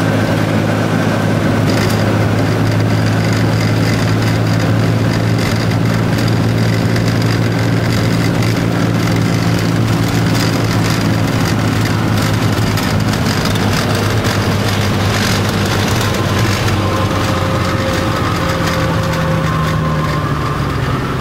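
Floatplane's piston engine and propeller running steadily as it taxis on the water, heard from inside the cabin.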